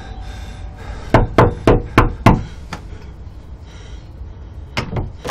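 Knocking on a wooden door: a quick run of five knocks, then two more near the end. A doorbell chime rings out and fades in the first second.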